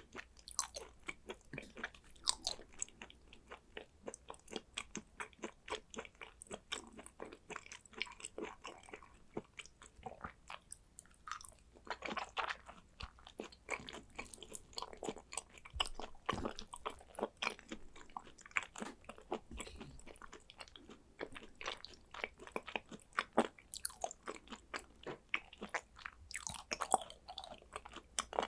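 Close-miked chewing and biting of sliced raw Hanwoo beef, a steady run of many quick, irregular mouth clicks and smacks with a few louder bites.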